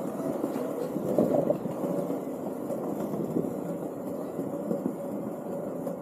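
Landyachtz Dinghy cruiser skateboard's wheels rolling over stone paving slabs: a steady rumble, a little louder about a second in.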